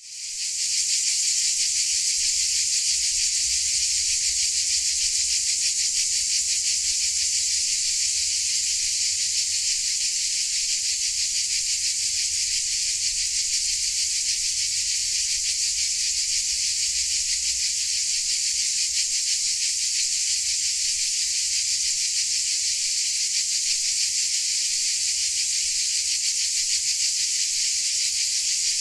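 Dense chorus of crickets, a continuous high-pitched shrill buzz that fades in at the very start and then holds steady.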